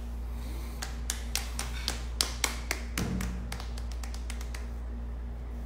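A quick run of about a dozen light taps, irregular and roughly four a second, lasting a little under three seconds, close to the microphone. A short low tone sounds about three seconds in, over a steady low hum.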